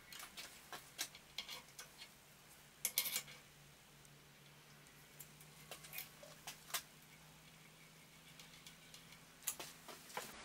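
Scattered sharp clicks and light knocks as the steel magnetic chuck and its hold-down clamps are handled and nudged into position on the surface grinder table, the loudest cluster about three seconds in. A faint steady low hum runs underneath.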